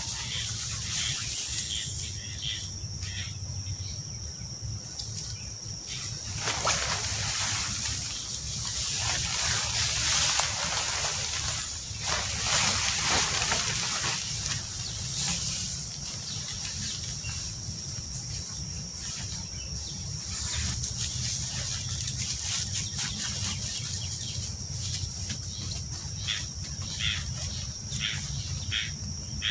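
Nylon dome tent fabric and poles rustling and rattling in swells as the tent is handled, with a series of short ticks near the end. A steady high-pitched whine runs in the background.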